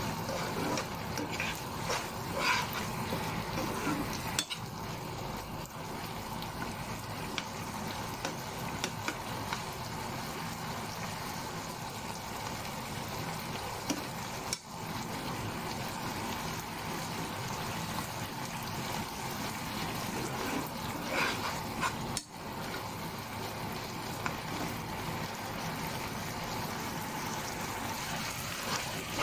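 Pork cubes frying and simmering in their juices in a nonstick frying pan, a steady sizzle, while a metal spoon stirs them and now and then clicks and scrapes against the pan.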